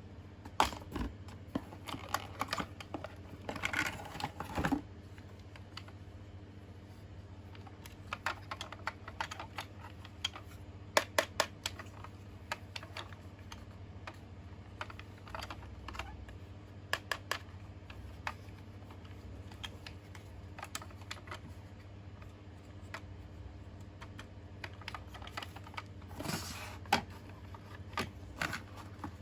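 Scattered sharp plastic clicks and taps with bursts of rustling, as a toy and its packaging are handled, over a steady low hum.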